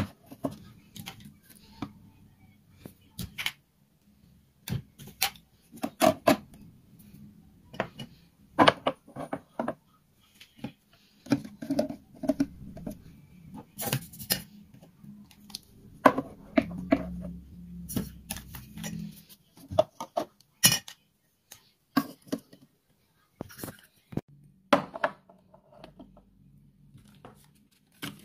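Household objects being handled and set down: a series of irregular clinks and knocks, with a low hum under some stretches.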